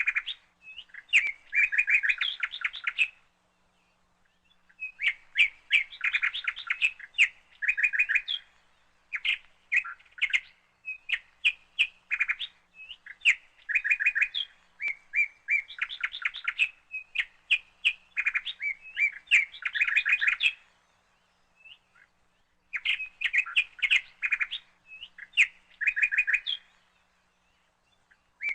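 Birds chirping and chattering in bursts of rapid, repeated high notes, each burst lasting a second or a few seconds, with short quiet gaps between.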